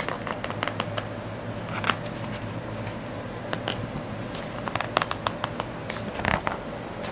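Paper pages of a picture book being handled and turned: a run of light paper ticks and rustles, with louder page flicks about two seconds in and again about six seconds in, over a steady low hum.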